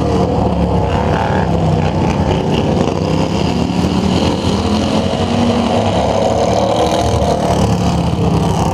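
Engines of racing lawn tractors running hard as the mowers pass close by one after another, the pitch rising and falling slightly with the throttle.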